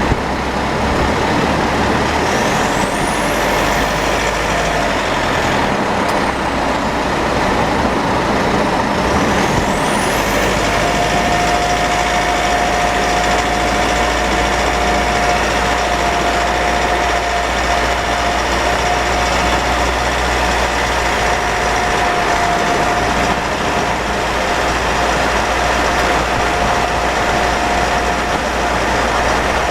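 Mitsubishi 4N15 diesel vehicle running with a steady low rumble. About ten seconds in, a steady high-pitched whine sets in and holds. It is a drivetrain whine that repeated dealer visits could not cure, and the owner later blamed it on low automatic transmission fluid and burnt differential oil.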